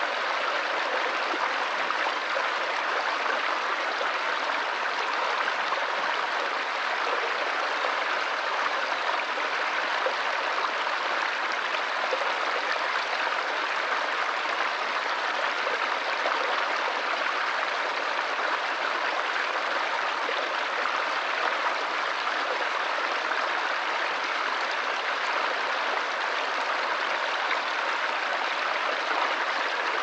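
Small forest stream flowing over rocks and little cascades, a steady, even rush of splashing water.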